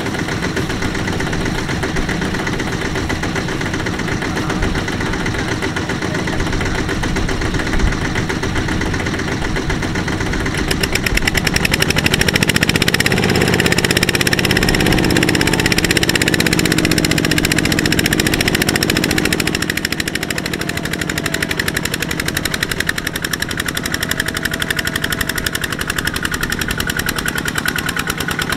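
Single-cylinder diesel engine of a Kubota RT120 power tiller running steadily, then throttled up about ten seconds in and working hard, its pitch climbing, for several seconds as it drags a laden trailer through deep mud, before easing off again.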